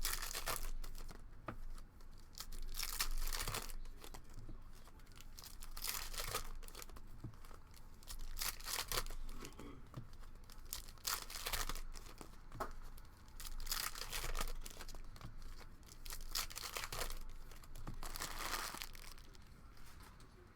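Trading-card box and pack packaging being torn open and crinkled by hand, in repeated bursts of tearing and rustling every second or two.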